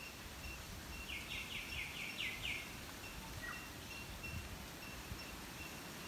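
A bird gives a quick run of about six sharp notes, each falling in pitch, about a second in, over a soft high pip that repeats steadily two or three times a second.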